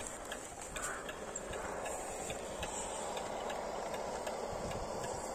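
Radio-controlled scale crawler trucks running their electric motors and geared drivetrains as they crawl over dirt, a steady whirr that grows a little louder about a second and a half in, with scattered light clicks.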